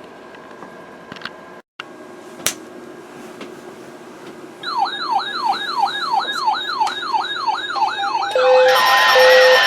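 An electronic siren yelping, its pitch sweeping rapidly up and down about three or four times a second for several seconds. Near the end it gives way to louder alert tones with short regular beeps.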